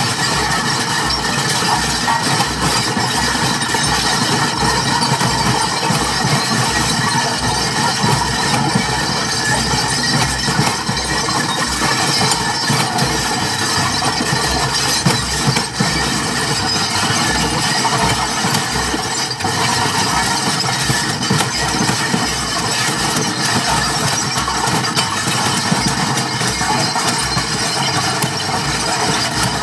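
Experimental noise performance: a loud, dense, unbroken wall of noise with a fast, irregular flickering rumble in the low end.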